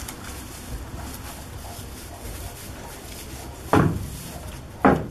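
Two loud wooden knocks about a second apart, over a faint low background, as goats climb and tug at a discarded Christmas tree in a wooden stall.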